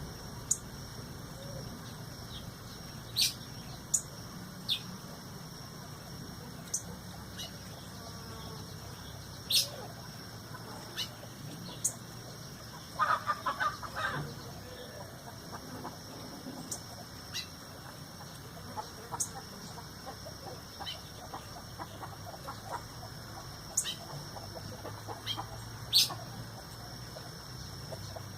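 Birds calling: short sharp chips scattered irregularly throughout, with a brief quick run of lower calls about halfway through, over a steady high-pitched hum.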